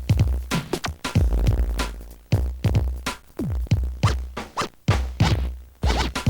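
Instrumental intro of a pop song: a beat of sharp hits that each drop in pitch, over a deep bass, with no singing yet.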